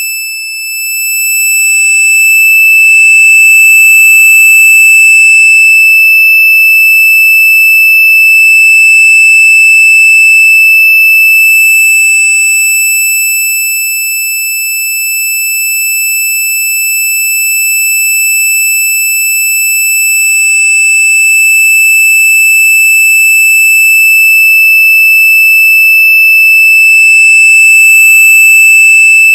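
A very loud, steady, high-pitched electronic tone held without a break, with fainter higher overtones above it. It dips briefly just after the start and softens slightly for a couple of seconds in the middle. This is the 'most annoying sound' effect.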